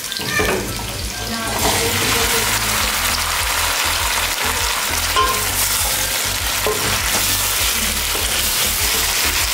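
Raw chicken pieces going into hot oil and lightly browned onions in an aluminium pot and sizzling as a wooden spoon stirs them. The sizzle swells about a second and a half in and then holds steady.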